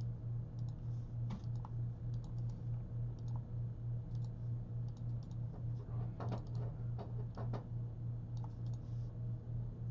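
Scattered computer keyboard keystrokes and mouse clicks, most of them bunched about six to seven seconds in, over a steady low hum.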